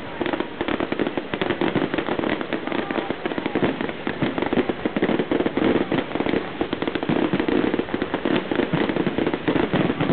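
Fireworks display: a dense, unbroken barrage of rapid cracks and bangs, many per second.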